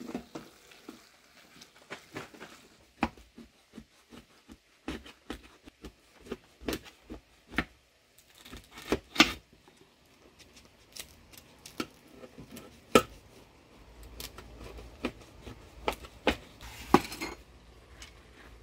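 A wooden spoon stirs and scrapes in a metal cooking pot, giving irregular knocks and clinks. Then a kitchen knife cuts through baked pastry in a metal baking tray, its blade tapping against the tray.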